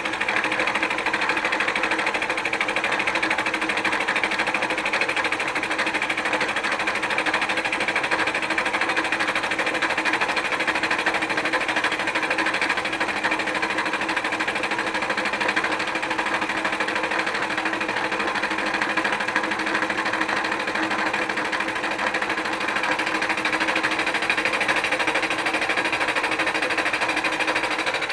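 Milling machine cutter taking a facing pass across an engine manifold's pitted sealing face, a steady, unbroken cutting sound.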